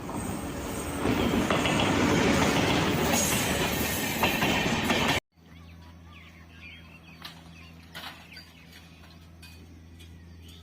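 Train passing close by, a loud rush of running noise with wheels clattering over the rail joints. It cuts off abruptly about five seconds in, leaving a steady low hum with a few scattered clicks.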